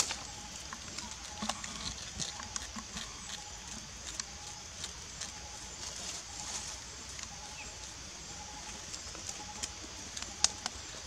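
Tropical forest ambience: a steady high insect drone, a faint short note repeating about every three-quarters of a second, and scattered small clicks and taps.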